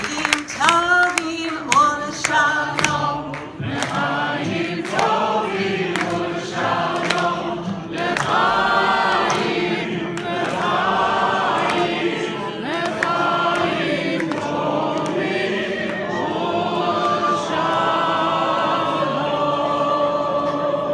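A large group of cantors singing together in chorus, held notes rising and falling, with hand clapping over the first few seconds.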